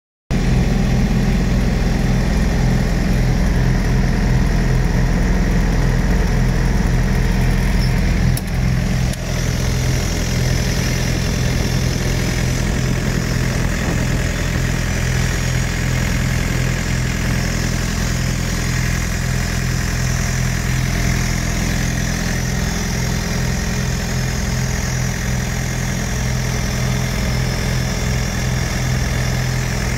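Small diesel engine of a trailer's refrigeration unit, fitted with a Zexel injection pump, running steadily at an even speed, with a brief dip about eight to nine seconds in.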